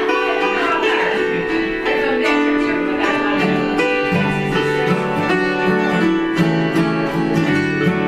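Hammered dulcimer and acoustic guitar playing an instrumental folk tune with quick struck notes; lower guitar bass notes come in about halfway through.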